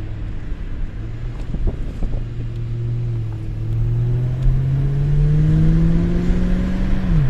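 Ford BF Falcon XR8's 5.4-litre Boss V8 pulling under acceleration, its note rising steadily for several seconds. Near the end it drops sharply as the six-speed automatic shifts up a gear.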